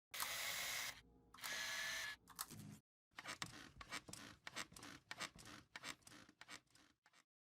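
Two short hissing bursts, then a run of quick, irregular scratching clicks lasting about four seconds.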